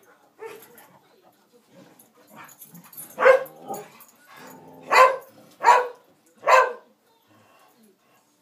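A dog barking in play: softer sounds at first, then four loud, short barks from about three seconds in, the last three coming in quick succession.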